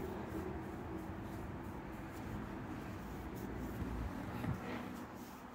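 Faint rubbing and handling sounds of a marker and fingers working on a cotton sock, over a low steady background noise, with one short knock about four and a half seconds in as the phone is moved.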